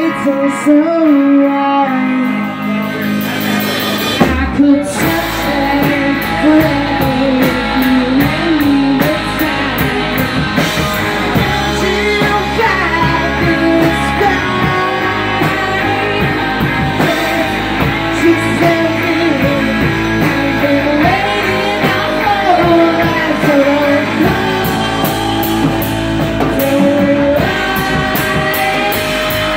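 Live rock band: a woman singing lead over electric guitars, electric bass and a drum kit. The bass and drums fill in the low end about four seconds in.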